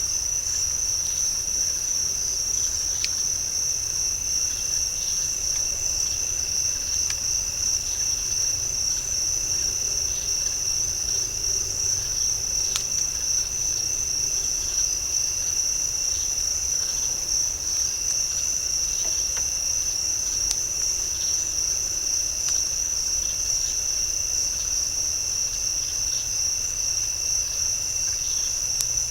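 A chorus of night insects such as crickets makes a steady, high-pitched continuous trill, with a weaker lower steady tone under it.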